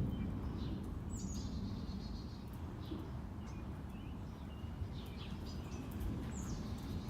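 Small birds chirping and calling, with short high chirps and two brighter calls that slide down in pitch, about a second in and again near the end, over a steady low rumble.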